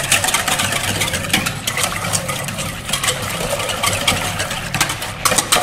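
Wire whisk beating a thin liquid sauce in a stainless steel mixing bowl: quick, continuous metallic clinks and swishing. A steady low machine hum runs underneath.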